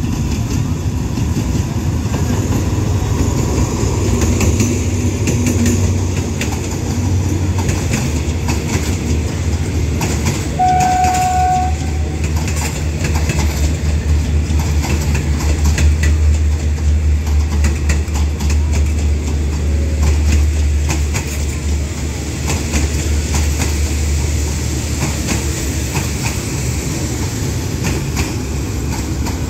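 Alsthom diesel-electric locomotive hauling an express train into the station: a deep engine rumble with wheels clacking over the rail joints, and a brief horn toot about ten seconds in.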